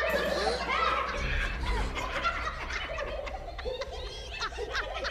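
Cartoon hyenas cackling: many short, chattering laughs overlapping, over a steady low rumble.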